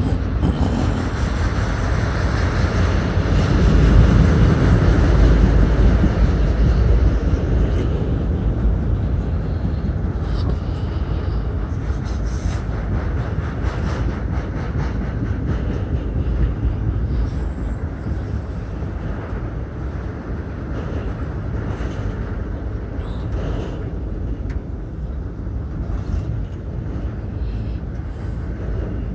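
Freight train autorack cars rolling past: a steady rumble of steel wheels on rail with scattered clicks. It is loudest a few seconds in, then eases off a little.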